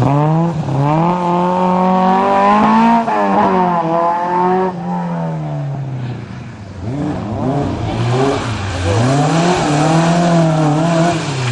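Historic rally car engine revving hard at full throttle through the gears, its pitch climbing and dropping at each shift. It falls away about six seconds in, then climbs hard again.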